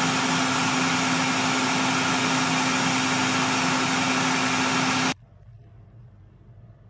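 Ninja countertop blender motor running at full speed, a loud steady whir with a strong hum, blending raw chicken into a paste; it stops abruptly about five seconds in.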